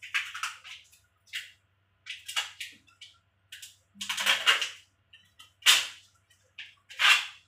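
Kitchenware being handled off-camera: a run of sharp, irregular clatters and knocks, about eight in all, the loudest in the second half.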